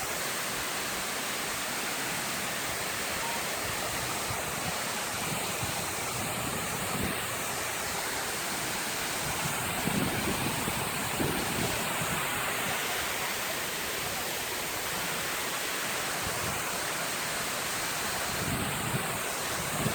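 Steady rush of a tall waterfall pouring onto rocks, with a couple of brief bumps about halfway through.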